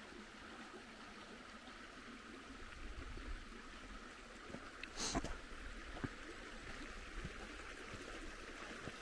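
Small rocky stream flowing, a steady rushing hiss, with a short sharp click about five seconds in.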